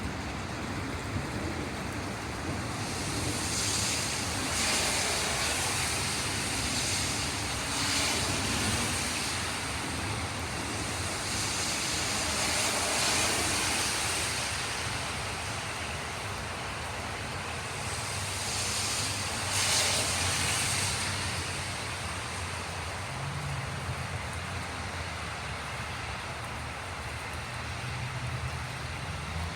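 Rain falling during a thunderstorm, a steady wash of noise over a low rumble, swelling four times into louder hiss for two or three seconds at a time. No siren is sounding.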